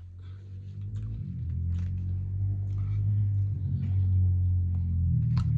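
A low steady hum that grows steadily louder, with scattered small clicks and mouth sounds of eating over it.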